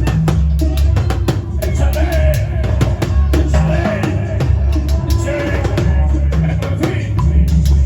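Loud music with a heavy bass line and a steady drum-kit beat, with a wavering melody over it.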